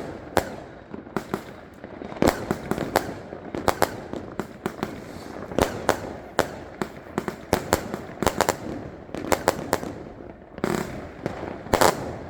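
Firecrackers going off in a long, irregular series of sharp bangs, some singly and some in quick clusters.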